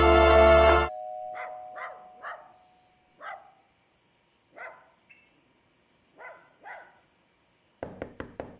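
Brass music cuts off about a second in. In the quiet that follows, a dog barks faintly: about seven short barks, single or in pairs, a second or so apart. Near the end comes a quick run of sharp clacks.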